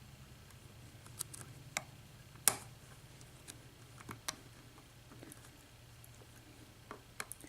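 Faint, irregular clicks and ticks of a pick and tension wrench working the spool-pinned pins of a Schlage KIK 6-pin lock cylinder, with one sharper click about two and a half seconds in.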